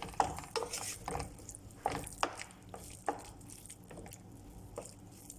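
A spoon stirring ground meat in tomato sauce in a pan on the stove: irregular clacks and scrapes against the pan over a faint sizzle, busiest in the first half and sparser near the end.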